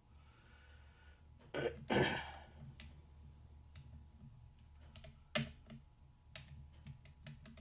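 Small sharp clicks of tools and lock pins being handled while a padlock core is taken apart, with a brief noisy burst about two seconds in.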